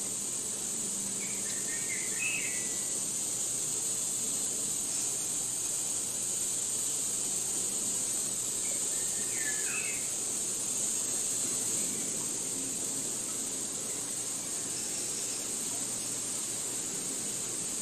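Steady high-pitched drone of insects, with a bird giving short chirping calls twice, about two seconds in and again about halfway through.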